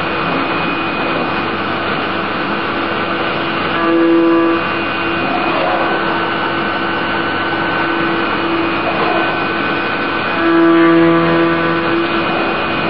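CNC milling machine cutting an aluminium speargun head under flood coolant: steady spindle and cutting noise with the hiss of coolant spray. A louder humming tone from the cut swells briefly about four seconds in and again near the end.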